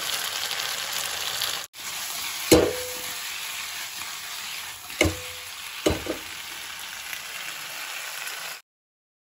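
Potatoes sizzling in hot oil in a wok while being stirred and tossed, with a metal spatula knocking against the pan three times, the first two knocks ringing briefly. The sound cuts off near the end.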